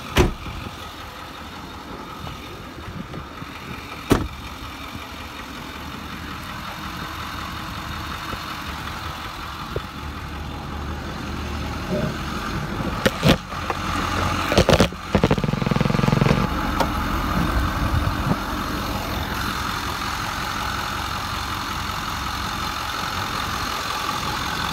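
Ford 6.4-litre Power Stroke V8 turbo-diesel idling steadily and smoothly. A truck door shuts right at the start, and a knock about four seconds in and a cluster of clicks and knocks around the middle come from the hood being released and raised.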